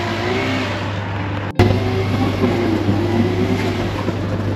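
Outdoor street noise with a steady low rumble and faint wavering hum, broken by a brief dropout about one and a half seconds in.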